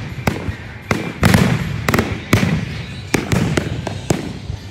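Fireworks going off: sharp bangs and cracks in quick, irregular succession, roughly a dozen in under five seconds, over a continual low rumble.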